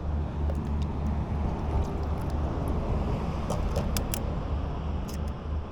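Steady low outdoor rumble, with a few sharp clicks about three and a half to four seconds in.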